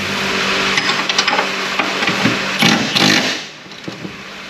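Tool work on a car's rear leaf-spring shackle: short rattling bursts and knocks from a cordless impact driver and the metal parts, over a steady hum that stops about three and a half seconds in.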